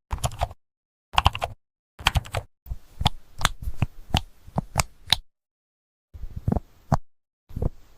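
Keyboard typing: short runs of key clicks separated by gaps of dead silence, with a longer run of quick keystrokes in the middle.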